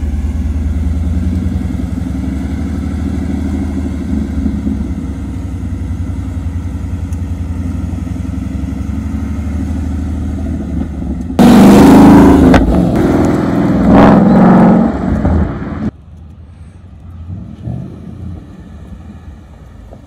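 Ford Mustang engine running with a steady low rumble as the car rolls, then about eleven seconds in a sudden, much louder burst of hard acceleration lasting about four seconds that cuts off abruptly. Afterwards the engine is only faint.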